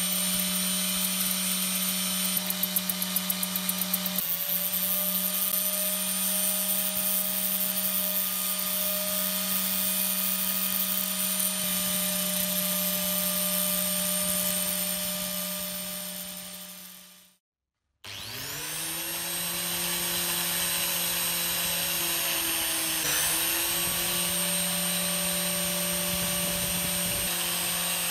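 Small electric power tool motor running at a steady speed with a high whine. About seventeen seconds in it is switched off and winds down to silence, then it is switched on again a second later, spins up and runs steadily.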